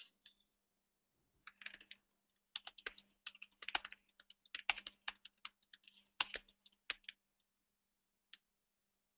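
Typing on a computer keyboard: a quick run of key clicks for about five seconds, then a single click, over a faint steady hum.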